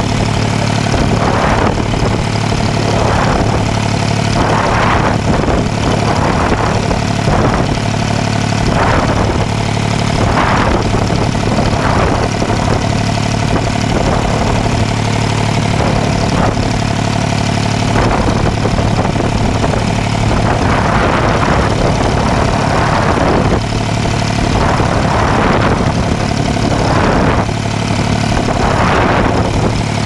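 Fishing boat's engine running steadily with a low hum, while water washes and splashes against the moving hull in surges every second or two.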